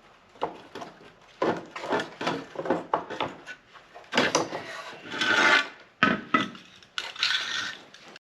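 Irregular knocks and scraping from hand work on a car's heater box, typical of scraping old gasket material off the housing. Two longer scraping passes come around the middle and near the end.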